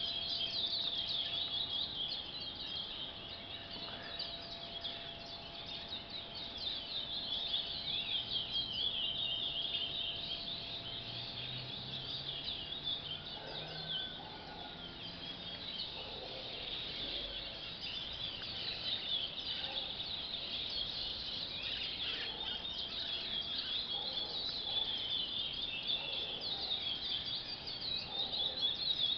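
Several young curiós (chestnut-bellied seed-finches) singing at once, their chirps and trills overlapping without a break: birds still in song formation, learning the classic curió song.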